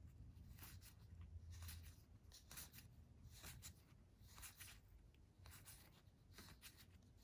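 Faint, soft swishes of board-game cards sliding off a stack one by one, a stroke every half second or so, over a low room hum.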